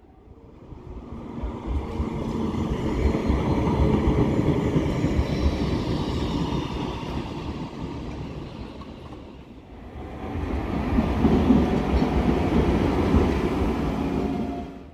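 Bombardier M33B Flexity low-floor tram passing on street track, its rumble swelling and fading away. Then, after about nine and a half seconds, an older ASEA/MGB M31 tram passes close by, louder, and the sound cuts off at the end.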